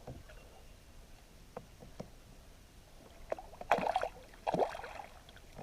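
Water splashing twice, briefly, about four seconds in, as a small bream is scooped into a landing net beside a kayak, after a few faint clicks and knocks.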